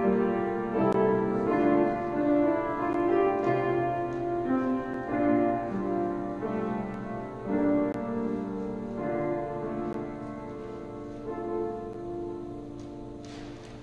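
A slow piece played on piano, in sustained chords and melody notes, growing quieter and dying away near the end.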